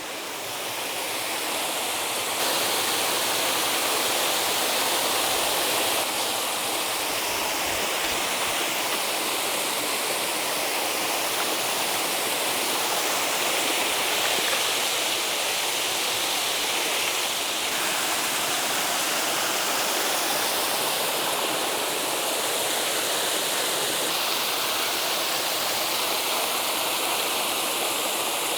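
Double-cascade waterfall: water rushing and splashing in a steady, full roar. It grows louder over the first couple of seconds, then holds even.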